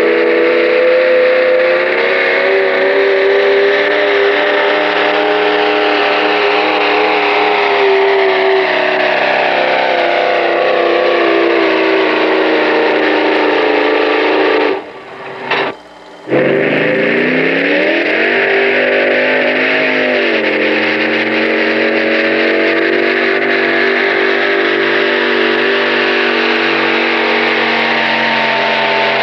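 Pulling tractor engines running at full throttle. For the first half one engine's pitch slowly falls as it pulls. After a brief drop-out about halfway, another engine revs up and holds a steady pitch.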